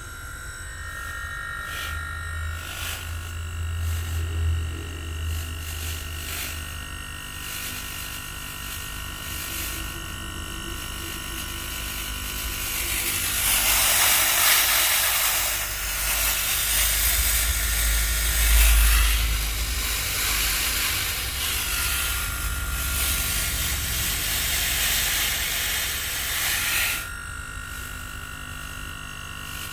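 Samsung inverter air conditioner running after a repair to its power-supply board, with a steady electronic whine and a low hum. About halfway through, a loud hiss starts and lasts about thirteen seconds before it cuts off.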